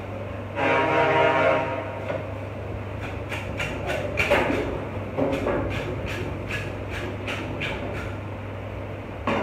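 Knife scraping along a large sturgeon's skin and bony scutes in a string of short strokes, about one or two a second, over a steady low hum. About half a second in, a loud pitched whine lasts just over a second.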